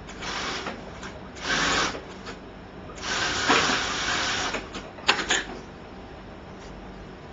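ALPHA SF 101GL industrial sewing unit stitching in short spurts: four runs of the machine, the longest about a second and a half, with a steady low hum between them.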